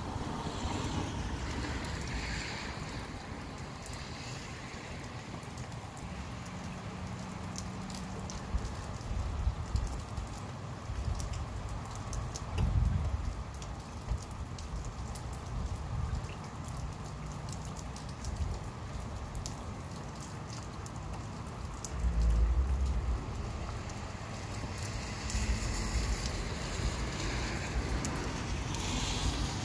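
Rain shower falling steadily, with fine drop ticks. A breezy outflow wind gusts in low rumbles several times, most strongly a little before halfway and again about three-quarters in.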